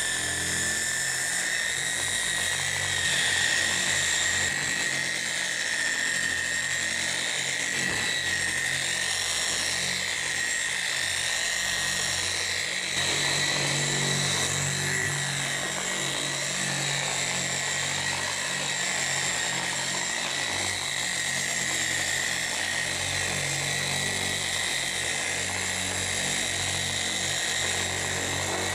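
Handheld electric orbital polisher with a foam pad buffing car paint, its motor running steadily with a high whine.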